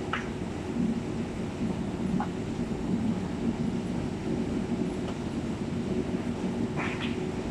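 Steady low rumble and hum of steel rolling plant machinery running, with a few short metallic clinks and squeaks, one just after the start, one about two seconds in and one near the end.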